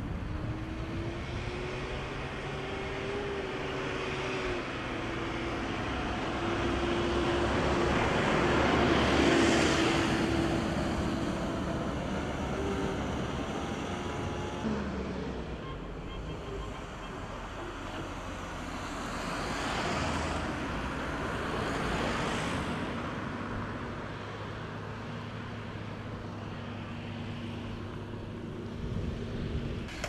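Steady engine hum under a broad rushing noise that swells and fades twice, loudest about nine seconds in and again about twenty seconds in.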